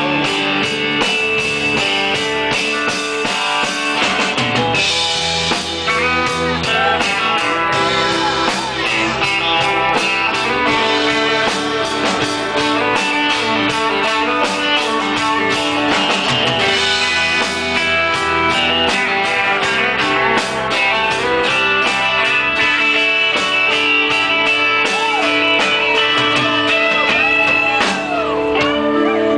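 Live rock band playing an instrumental break with no singing: an electric lead guitar plays bent notes over the drums and the rest of the band.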